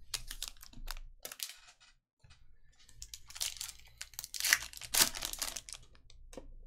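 Foil wrapper of a trading card pack being torn open and crinkled, with sharp crackles loudest about four and a half to five seconds in. Lighter rustles and clicks of cards being handled come in the first second and a half.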